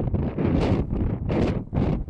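Wind buffeting the microphone, a loud low rumble that surges and drops in quick gusts.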